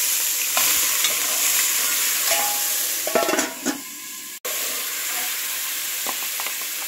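Ground onion and garlic frying with a loud, steady sizzle in hot oil and caramelized sugar in a pan, with a few clatters of stirring about three seconds in.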